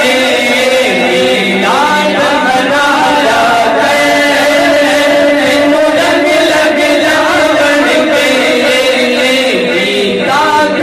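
Background music: a solo voice singing a slow chant-like song with long, wavering held notes.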